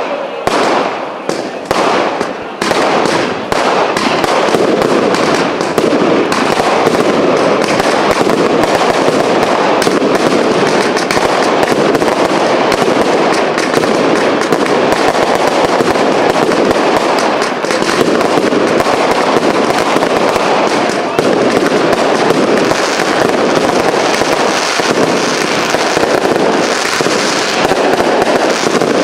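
Cake fireworks firing: a few separate bangs in the first three seconds, then a dense, continuous barrage of bursting shots and crackling.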